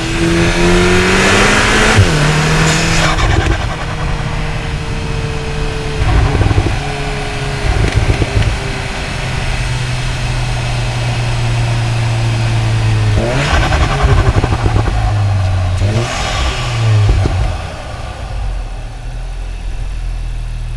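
Cupra Ateca's turbocharged 2.0-litre EA888 four-cylinder, heard through microphones at the intake and the exhaust, accelerating hard with a gearchange about two seconds in. It then runs steadily, pulls hard twice more around the middle and two-thirds of the way through, and settles to a lower, quieter note near the end.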